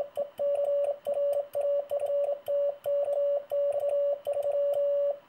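Morse code sent by hand on a handmade W1SFR magnetic sideswiper key in sideswiper mode, heard as a steady mid-pitched sidetone keyed into dots and dashes, with faint clicks at each keystroke.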